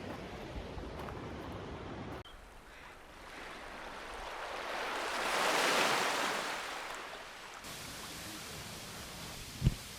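Rushing water that swells up to a loud peak about halfway through and then fades, with a short low thump near the end.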